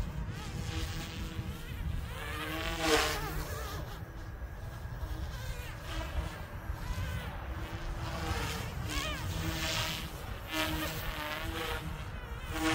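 Goosky S2 electric RC helicopter flying hard stunt maneuvers: a thin, buzzing whine from its motor and spinning blades that keeps rising and falling in pitch as it throws the heli around, with a louder swell about three seconds in. Wind rumbles on the microphone underneath.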